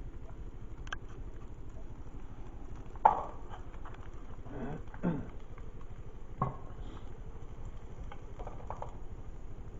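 A few knocks and clatters of objects being handled, the loudest about three seconds in and another pair near the middle, over a low steady background rumble.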